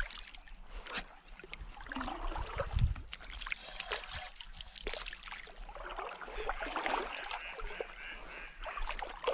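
Shallow seawater splashing and sloshing irregularly as a hooked needlefish is handled in the water, with a dull thump about three seconds in.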